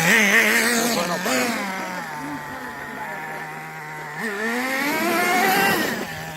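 Nitro RC car's small glow-fuel engine running at varying throttle as the car is driven. Its pitch falls over the first few seconds, rises again from about four seconds in, and drops near the end.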